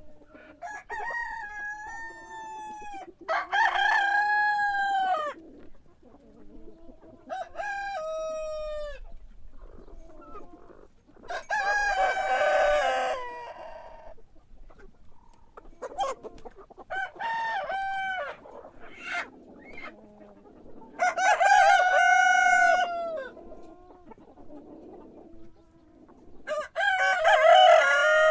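Rooster crowing again and again: about seven cock-a-doodle-doo calls a few seconds apart, some louder than others.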